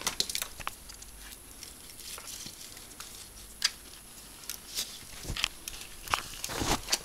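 Ferrets scrabbling about on a windowsill and pushing into a potted flower arrangement: irregular light clicks, taps and rustles, busier in the second half.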